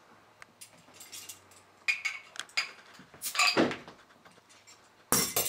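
A glass beer bottle being opened and handled: light metal-and-glass clicks and clinks, with two short rushes of noise, one around the middle and a louder one near the end.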